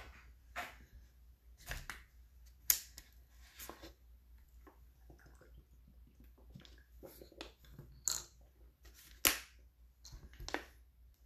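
Sporadic light clicks, taps and rustles of small handling noise over a faint low hum, with the sharpest clicks a little under 3 seconds in and twice between 8 and 9.5 seconds.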